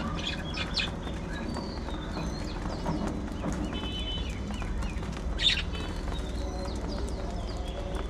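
A flock of budgerigars chirping and warbling, with one louder chirp about five and a half seconds in, over a steady low hum.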